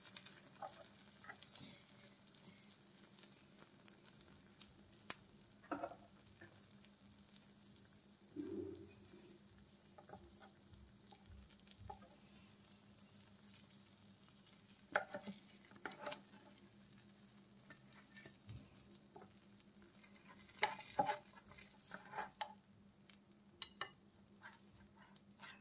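Faint sizzling and crackling from hot toasted cheese sandwiches in an open electric sandwich maker, with a steady low hum. Light clicks and scrapes of a slotted spatula near the end as the sandwiches are lifted off the plates.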